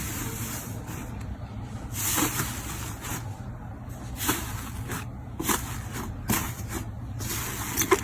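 Slime being squeezed and pressed by hand: irregular wet squelches and small crackling pops, over a steady low hum.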